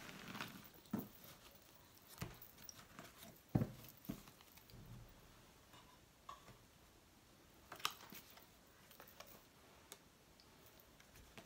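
Fortune-telling cards gathered up and decks moved about on a cloth-covered table: a few faint, scattered taps and soft rustles, the clearest a little after three and a half seconds in and near eight seconds in.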